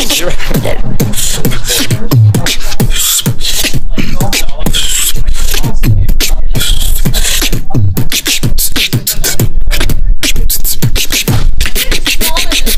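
Live vocal beatboxing: a fast, dense pattern of sharp percussive clicks and snare-like hits from the mouth, over deep bass kicks that fall in pitch every couple of seconds.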